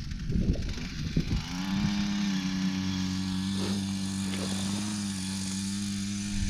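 Gas-powered ice auger engine starting up about a second and a half in, its pitch rising briefly, then running at a steady, even drone.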